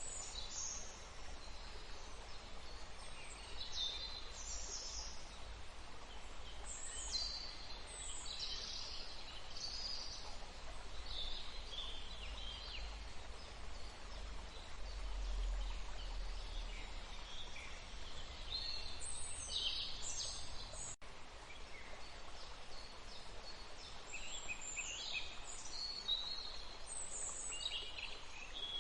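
Nature ambience: a steady rush of flowing water under birdsong, with many short high calls and chirps repeating throughout. The sound drops out for an instant about two-thirds of the way through.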